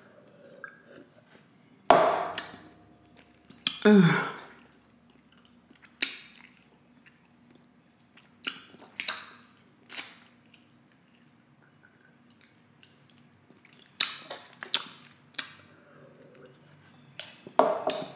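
Close-miked mouth sounds: swallowing water, then scattered lip smacks and breaths, about a dozen short soft clicks and puffs with pauses between them.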